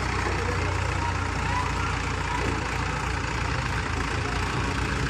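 Diesel engine of a mobile pick-and-carry crane running steadily, a low even rumble.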